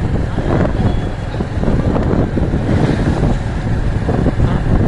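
Strong wind buffeting the microphone: a loud, uneven low rumble that swells and dips throughout.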